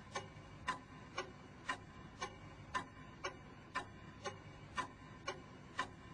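Steady ticking, about two evenly spaced ticks a second, each a sharp click with a slight ring, laid on the soundtrack over the title card.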